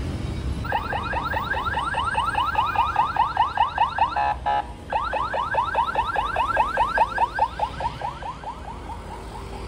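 Emergency-vehicle siren in fast yelp mode, about six rising whoops a second, broken once in the middle by a short steady tone and fading near the end, over traffic noise.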